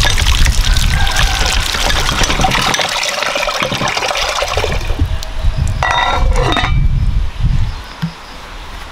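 Water gushing from a cast-iron hand pump's spout, splashing over hands and then pouring into a metal pail. A brief squeaky tone sounds about six seconds in, and the water sound falls away near the end.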